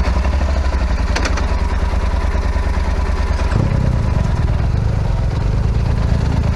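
Motorcycle engine running steadily. Its low note grows fuller and louder about three and a half seconds in, and there are a few faint clicks near the start.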